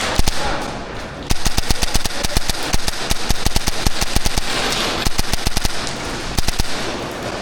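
Airsoft electric guns firing rapid full-auto strings of shots, a few shots in the first second, then near-continuous fire from about a second in.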